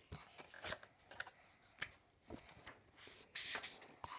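Faint rustling and light clicks of a phone camera being handled against a cotton sweatshirt, with a soft brushing rustle about three seconds in.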